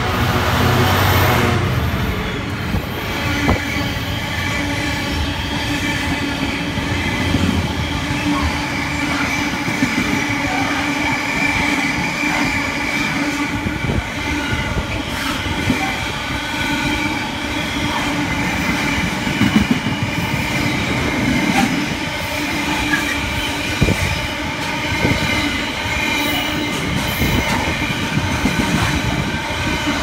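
Class 66 diesel locomotive's engine passing close by in the first couple of seconds, then a long container freight train's wagons rolling past at speed with a steady whine from the wheels and scattered clicks. The uploader calls it noisy and puts that down to recent rail grinding.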